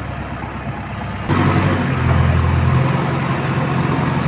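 Heavy diesel engine running steadily, then suddenly louder about a second in as it is throttled up, and it stays at the higher level.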